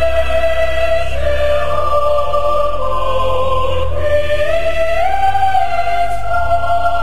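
Slow music of long held, choir-like notes that move to a new pitch every second or so.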